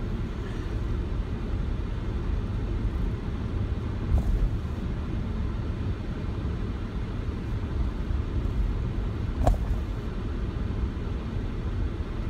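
Steady low rumble of a moving car, with two brief knocks, one about four seconds in and a sharper one near nine and a half seconds.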